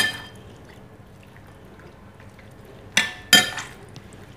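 Stainless steel potato masher clinking against a glass bowl while mashing soft boiled ridge gourd and tomato. There is a sharp clink at the start, then two more close together about three seconds in.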